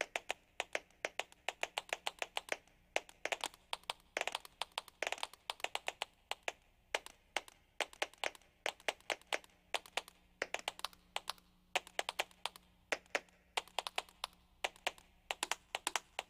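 A rapid, irregular run of sharp clicks and taps, several a second, over a faint steady hum.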